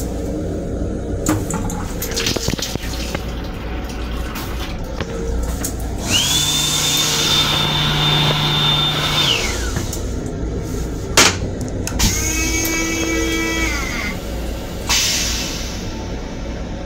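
Sensor-activated sink faucet in an M7 commuter train restroom running water into the basin for about three seconds, with a steady high whine, over the moving train's constant low rumble. A sharp click and then a shorter whine that sinks slightly in pitch follow a few seconds later.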